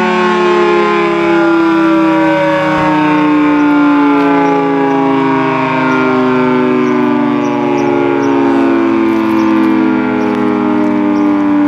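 1976 Federal Signal 2T22B dual-tone civil-defense siren sounding its two-note chord loud and steady, the pitch sliding slowly and evenly downward.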